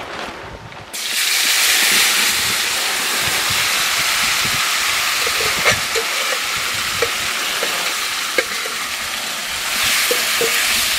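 Masala-coated raw jackfruit pieces dropping into hot mustard oil in an aluminium kadai and sizzling loudly, starting suddenly about a second in, with a few small clicks of a spatula stirring them in the pan.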